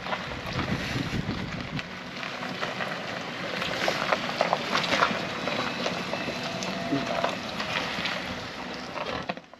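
Wind buffeting the microphone, with a gusty low rumble at first and scattered crackles and clicks throughout; it drops out suddenly just before the end.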